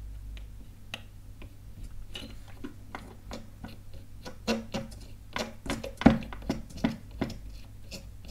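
Light, irregular clicks and ticks of a small plastic adjustment wheel being spun by hand as it is threaded onto its screw in an airsoft TDC hop-up adjuster. A low steady hum sits underneath.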